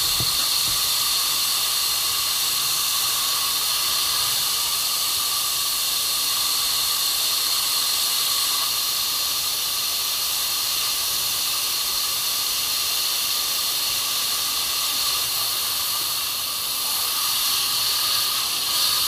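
Fire extinguisher discharging: one long, steady, high hiss of spray without a break, dipping slightly in level near the end.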